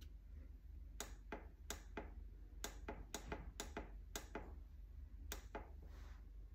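Ninja two-basket air fryer's control panel giving about a dozen short, sharp beeps, one per button press, in quick runs as the cooking time is set.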